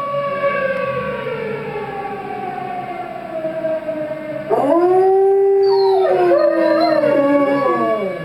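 Dogs howling along with a civil-defense tornado siren played through a speaker, under a steady siren tone. About halfway in, a loud howl rises and holds, then falls. Near the end, overlapping wavering howls suggest a second dog joining in.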